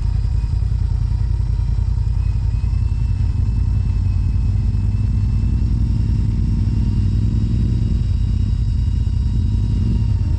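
Off-road side-by-side engine running with a steady low rumble. Its note strengthens for a few seconds around the middle, with faint steady high whines over it.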